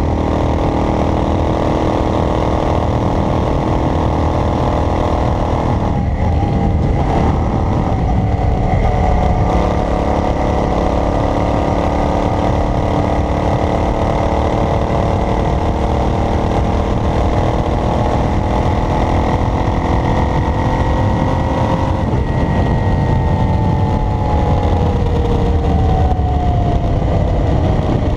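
Vehicle engine running under road noise while driving. Its pitch breaks about six seconds in and again about twenty-two seconds in, then slides down near the end.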